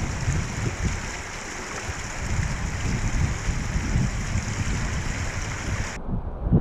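Shallow creek flowing, a steady rush of running water, with wind buffeting the microphone. About six seconds in, the water sound cuts off suddenly and only low wind rumble remains.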